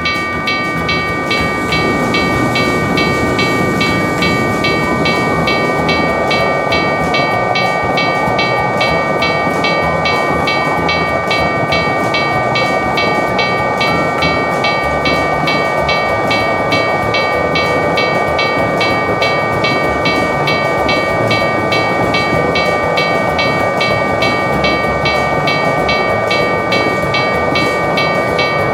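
Japanese railroad crossing alarm ringing in a steady, evenly repeating pattern over the continuous rushing rumble of a passing train.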